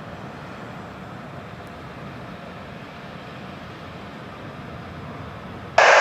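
Distant jet airliner engines at an airport, a steady rumble with hiss. Near the end a loud air traffic control radio transmission cuts in abruptly.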